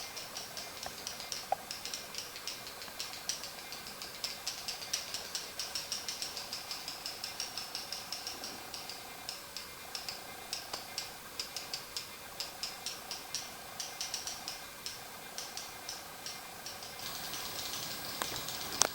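Kopeka (Atiu swiftlets) echolocating in their cave: rapid, sharp clicks, several a second, over a faint steady drone. A hiss comes in near the end.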